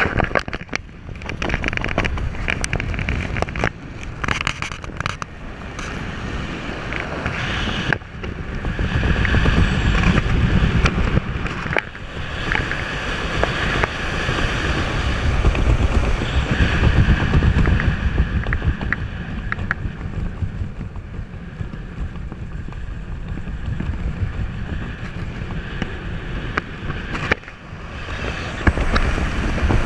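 Wind rushing over the microphone under a tandem parachute spiralling down, the airflow noise swelling and easing in long surges as the canopy turns, with a few brief clicks.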